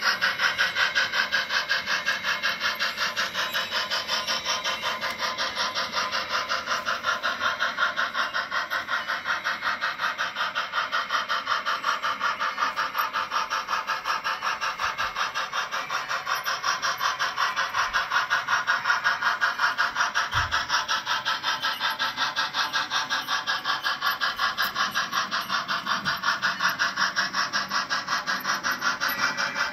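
On30 model steam locomotive's sound system chuffing in a fast, even rhythm as the engine runs steadily.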